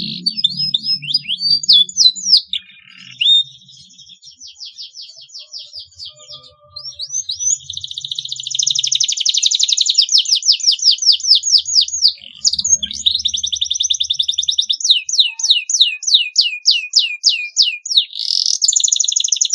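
Canary singing: fast repeated sweeping notes and rapid trills, with buzzy rolls between the phrases.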